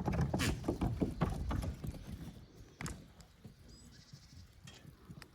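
Goats bleating over a clatter of knocks and scuffles that dies down about halfway through.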